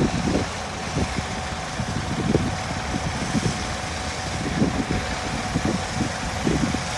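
Diesel engine of harvest machinery running steadily, with a constant thin whine over the rumble and light irregular rattling.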